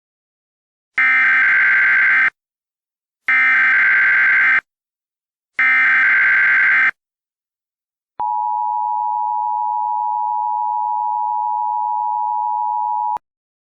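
Emergency Alert System SAME header: three identical bursts of shrill data tones about a second apart, followed by the two-tone attention signal, a steady tone held for about five seconds that cuts off abruptly. It is the signal that announces an emergency alert broadcast.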